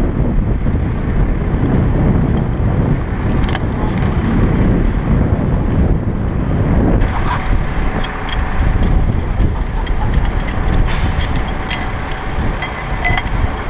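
Digger derrick truck running steadily, its engine and hydraulics working the boom. A steady whine joins about halfway through, with light metallic clicks.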